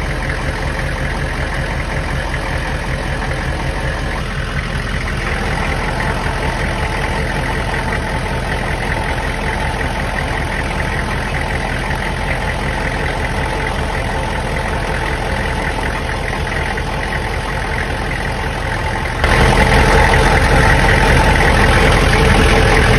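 A 2000 Hummer H1's 6.5-litre turbo-diesel V8 idling steadily, heard from underneath the truck. It runs so the cooling system builds pressure and shows where the coolant leaks. The sound gets noticeably louder about four seconds before the end.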